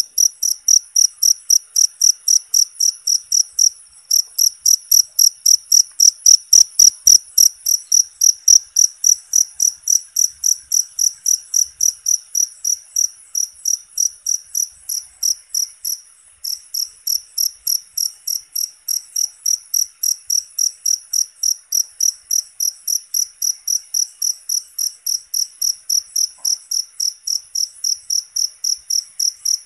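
Cricket chirping steadily at about three chirps a second, a high, even note, with brief breaks about four and sixteen seconds in.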